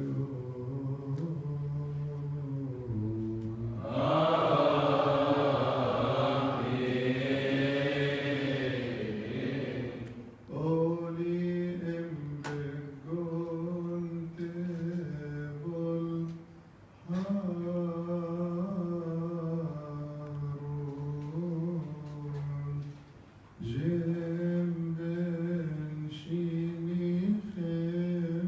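A priest chanting a Coptic liturgical chant into a microphone, in long drawn-out phrases that rise and fall slowly in pitch. From about 4 to 10 seconds in the chant grows louder and fuller, and it breaks off briefly three times.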